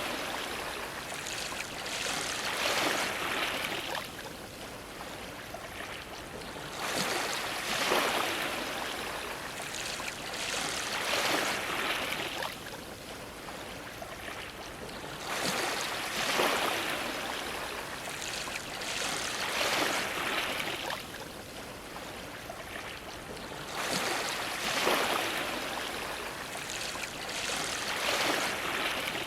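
Ocean waves washing against a dock, the splash and wash of water swelling and easing every few seconds.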